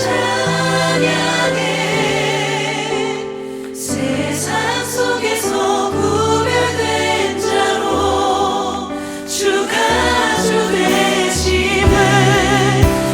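Choir singing a hymn with instrumental accompaniment, held notes and a steady bass line, with a brief dip between phrases about three seconds in.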